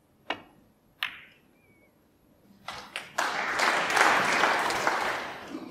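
Two sharp clicks of snooker balls in a quiet arena: the cue striking the cue ball, then a ball-on-ball click about a second later. Audience applause starts about three seconds in and fades near the end.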